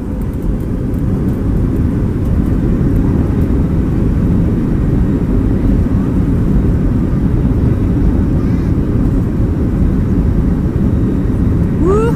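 Boeing 737 jet engines in the passenger cabin, spooling up over the first second or so and then running steadily at takeoff power during the takeoff roll: a loud, deep, even rumble.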